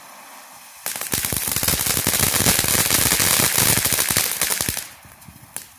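Phantom Fireworks Golden Pine Forest fountain spraying with a steady hiss, then about a second in breaking into loud, dense crackling, its crackle effect, for about four seconds. It drops back to a quieter hiss with a few scattered pops near the end.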